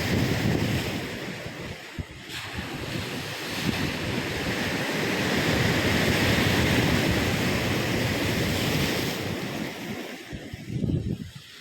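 Ocean surf breaking on the shore: a continuous rush of water that swells up through the middle and eases off near the end. Wind rumbles on the microphone underneath.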